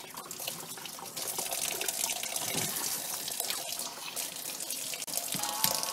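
Kitchen tap running into a stainless steel sink, the stream splashing over a plucked grouse being rinsed by hand.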